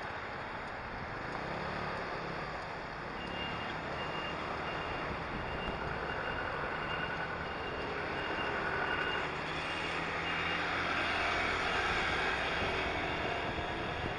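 Street traffic with a run of short, evenly repeating electronic beeps for several seconds in the middle, over steady road and wind noise that grows a little louder in the second half.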